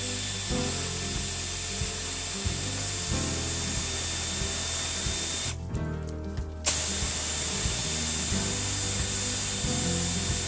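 Pneumatic air ratchet running with a steady hiss as it spins out an alternator bolt. It runs in two long spells, with the trigger let off for about a second halfway through.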